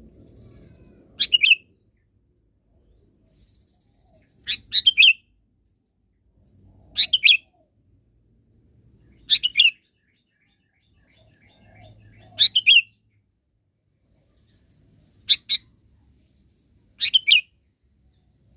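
Sooty-headed bulbul (kutilang) singing: seven short, quick bubbly phrases about every two to three seconds, with pauses between them.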